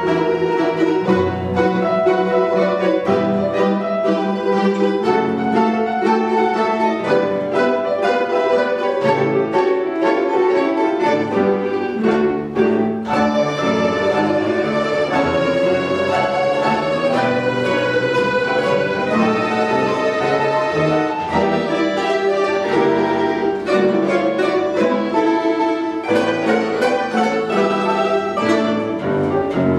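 An ensemble of Russian folk instruments plays a jazz-style piece, with busy, quickly moving notes throughout. There is a brief dip about twelve seconds in before the ensemble comes back in strongly.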